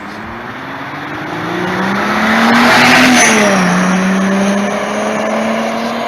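Car engine accelerating, its pitch climbing and loudest about halfway, then dropping and holding steady, with a faint high-pitched whistle over it from about halfway.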